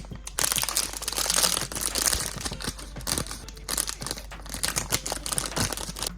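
Thin plastic wrapping crinkling and crackling as it is handled and torn open, densest in the first couple of seconds and then coming in shorter crackles.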